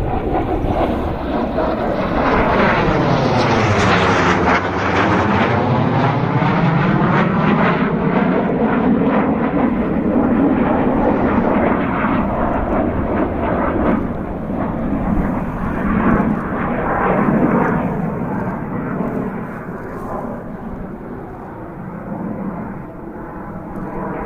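Blue Impulse Kawasaki T-4 jet flying past overhead with loud, rushing jet noise. As it passes, a few seconds in, the sound sweeps down and back up in pitch. It stays loud with another swell later on, then fades toward the end.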